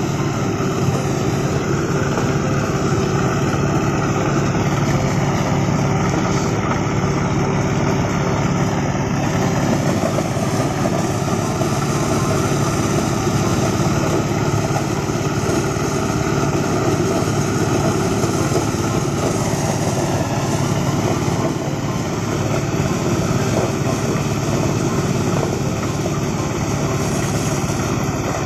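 Engine-driven corn sheller running steadily while cobs are fed into it: a loud, even drone of the small engine and threshing drum.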